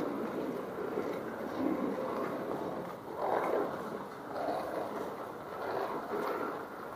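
City street ambience: a steady noise that swells and fades every second or two, with a few faint ticks.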